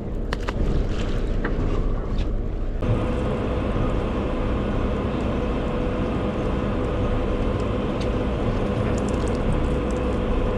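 A fishing boat's engine running steadily, with wind and water noise, and a few sharp clicks in the first seconds. About three seconds in the sound changes abruptly to a fuller rumble with a steady hum.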